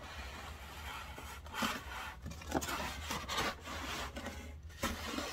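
Rigid foam packing blocks rubbing and scraping against each other and the sewing machine as they are worked off, in an irregular run of scratchy scrapes.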